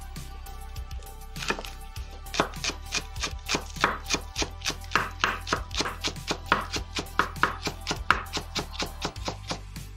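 Knife chopping green onions on a wooden cutting board: a quick, even run of chops, about four a second, starting about a second and a half in and stopping near the end, over background music.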